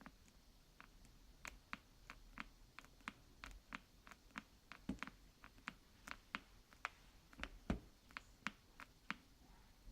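Microsoft Lumia 950 smartphone's body squeaking in a run of short, sharp clicks, unevenly spaced at about two or three a second, with a few louder ones near the middle.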